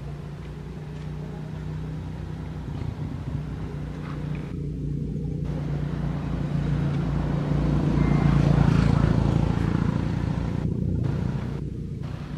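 A motor vehicle's engine hum, growing louder to a peak about eight seconds in, then fading.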